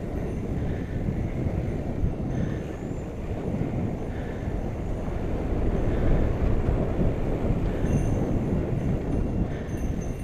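Mountain bike riding on a dirt trail, heard from a GoPro on the bike or rider: a steady rumble of tyres over the ground, bike rattle and wind on the microphone.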